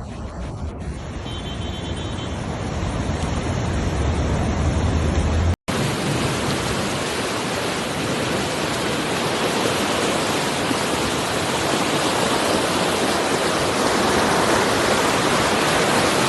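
Rushing floodwater, a dense steady roar. The first part has a strong low rumble under it. After a sudden cut about five and a half seconds in, the roar is fuller and grows slightly louder.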